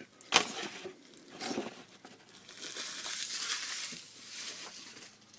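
Packaging being handled: a sharp click about half a second in, then crinkling and tearing, with a longer stretch of rustling in the middle.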